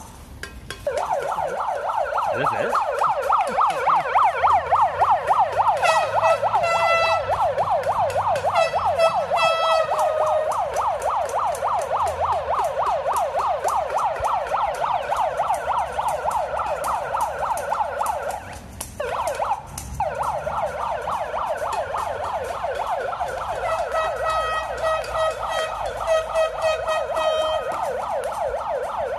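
Electronic siren sounding a rapid up-and-down yelp, loud and continuous except for a short break about two-thirds of the way through. A second pulsing tone joins in twice.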